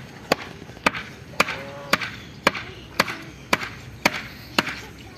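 Steady chopping, like a blade striking a chopping block: sharp knocks at an even pace of about two a second.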